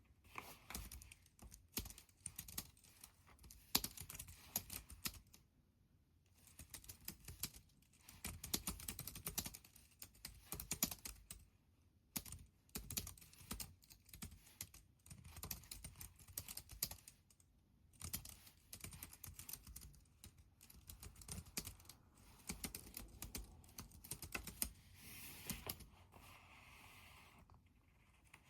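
Computer keyboard typing: runs of quick key clicks in bursts, with brief pauses between them.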